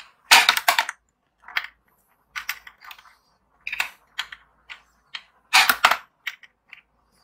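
Plastic tabletop finger basketball game in play: the flick lever snaps and small hollow plastic balls clatter off the backboard, hoop and plastic court in bursts of sharp clicks and rattles. The loudest bursts come about half a second in and again just before six seconds.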